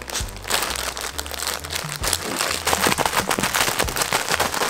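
Plastic bag crinkling and crackling as a Border Collie bites and paws at it, the crackling getting denser about halfway through.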